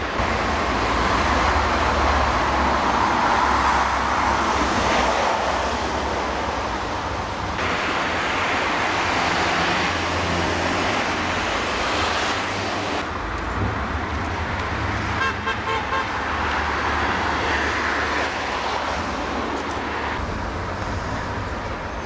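Street traffic: cars driving past one after another over a steady low rumble, the sound swelling and easing as vehicles come and go.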